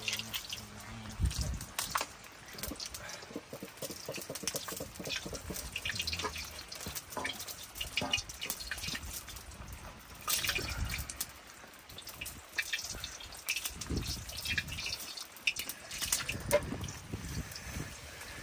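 Rain falling, with irregular drips and splashes of water tapping at an uneven rate.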